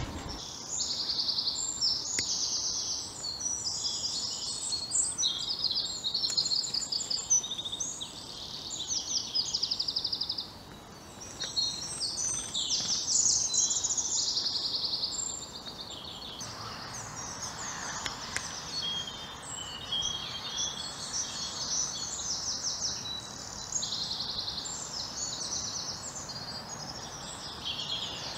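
Several songbirds singing at once, a dense woodland chorus of high-pitched rapid trills and repeated phrases. There is a brief lull about ten seconds in.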